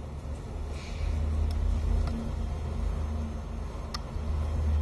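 A low, steady rumble with two faint clicks, one about a second and a half in and one near the end.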